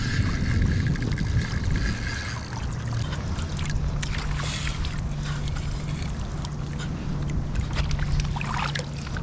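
Water splashing and sloshing beside an inflatable kayak as a snagged carp is landed with a net, with scattered knocks and clicks from the net and gear. A steady low rumble runs underneath.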